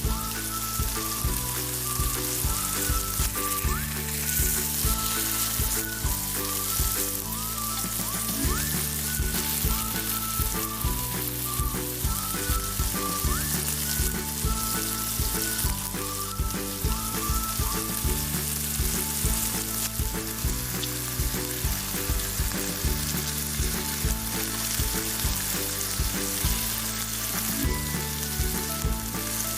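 Food sizzling as it fries in a pan, a steady hiss throughout, with background music that has a repeating bass line and a light melody.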